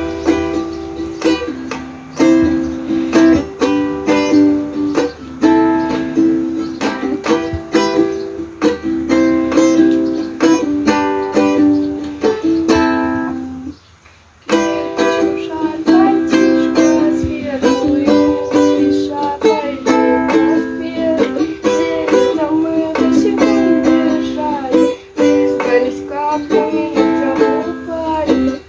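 Ukulele strummed in chords, with a singing voice coming in after a brief break about halfway through.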